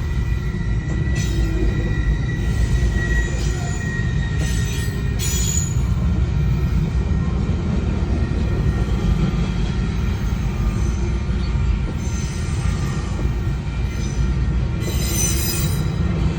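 Train rolling past at close range: a steady heavy rumble of wheels on rail, with a thin high wheel squeal through the first few seconds and short screeches now and then, the longest near the end.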